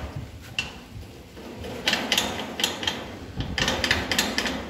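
Hand working the latch of a locked sheet-metal gate: a quick run of metallic clicks, knocks and rattles starting about two seconds in, as the gate stays shut.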